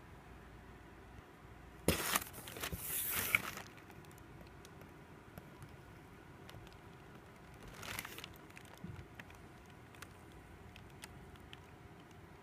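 Paper leaflets rustling as they are handled: a loud rustle of under two seconds about two seconds in, a shorter, softer one around eight seconds in, and a few light ticks in between.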